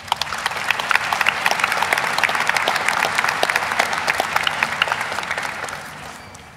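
Audience applauding: many hands clapping, starting at once and dying away over the last second or so.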